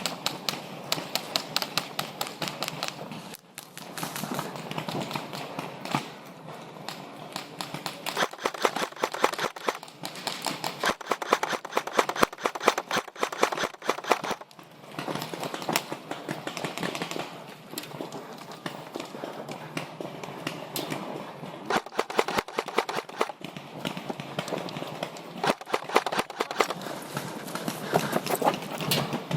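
Airsoft guns firing in rapid bursts of clicks, several bursts spread through the stretch.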